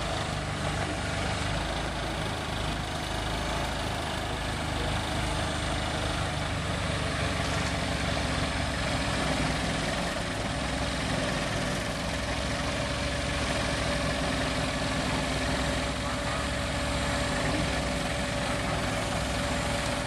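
Matbro telehandler's diesel engine running steadily as its arm lowers a heavy log onto a mobile sawmill's bed.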